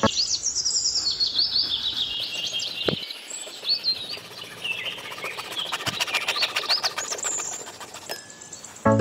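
Small birds chirping and twittering continuously, many quick high calls overlapping, with a single sharp click about three seconds in.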